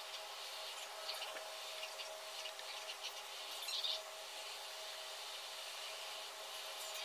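Colored pencil scratching on paper in a series of short, irregular strokes, with a louder rub about halfway through, over a faint steady hum.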